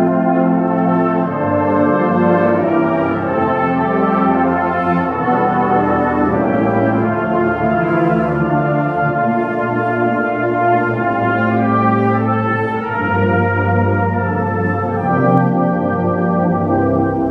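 Brass band of trombones, euphoniums and tubas playing steadily in sustained chords, with the low brass holding long notes.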